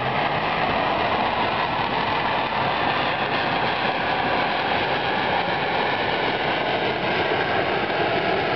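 Fighter jet flying past: a loud, steady jet-engine rush, with a faint whine that slides slowly lower in pitch near the end.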